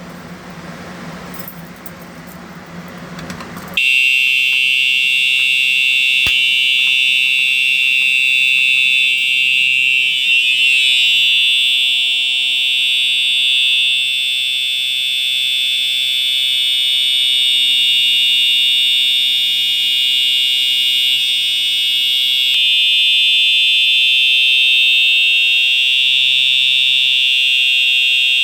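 Home fire alarm system's notification appliances sounding in a full bell test: a loud, steady high-pitched alarm tone cuts in suddenly about four seconds in over a low hum and holds without a break. Its tone shifts slightly about two-thirds of the way through.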